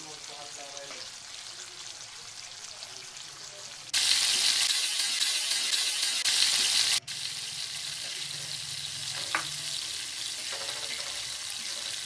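Chopped garlic sizzling in melted butter in a wok while a metal ladle stirs it. The sizzle gets much louder for about three seconds in the middle, as more chopped garlic is tipped in from a bowl, then settles back to a steady fry.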